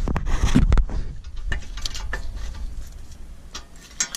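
Metal clicks and knocks as the steel brake caliper bracket is handled and lined up against the hub, with heavy bumping in the first second.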